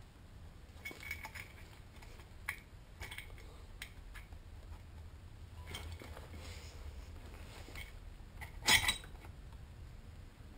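Light metallic clinks and knocks as the cylinder and timing-chain parts of a GY6 four-stroke scooter engine are handled and worked loose, with one louder knock near the end.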